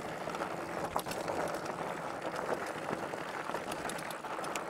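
Fat tyres of an electric mountain bike rolling over loose, sandy gravel: a steady quiet crunching hiss with scattered small clicks.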